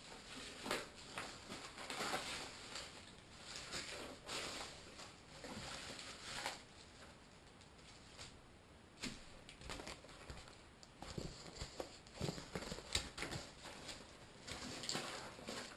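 Quadcopter kit packaging being handled and opened: irregular rustling and crinkling with small clicks and taps.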